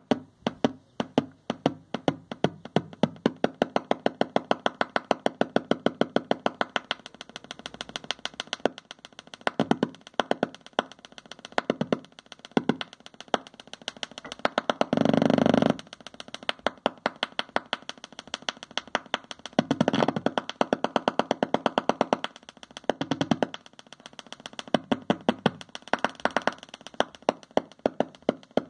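Handmade 9-volt Noise Heads noise synth with three oscillators, played by a hand on its body contacts: a stream of sharp electronic clicks whose rate speeds up and slows, broken by a harsh, sustained buzzing tone about halfway through and a few shorter ones later.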